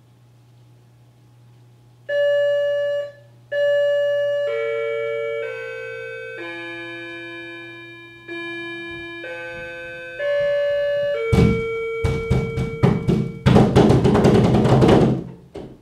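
Electronic doorbell playing a multi-note chime tune, about nine held notes stepping up and down, starting about two seconds in. Over its last notes comes rapid, loud pounding on the door, the loudest part, stopping shortly before the end.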